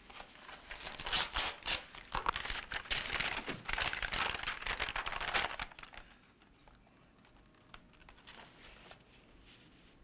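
Paper rustling and crackling in quick, uneven bursts as a letter is taken from its envelope and unfolded, dying away about six seconds in.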